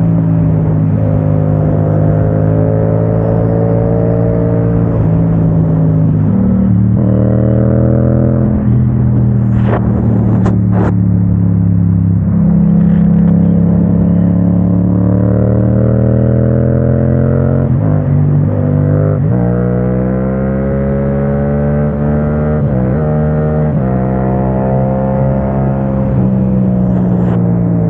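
Yamaha motorcycle engine under way, climbing in pitch through the revs and dropping back at each gear change, several times over, with a few brief clicks about ten seconds in. It is picked up by the Insta360 camera's own microphone with its wind-noise reduction.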